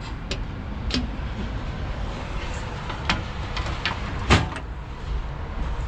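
A few light clicks and one sharp, louder knock about four seconds in, from handling the fittings and latches of a travel trailer's outdoor kitchen, over a steady low rumble.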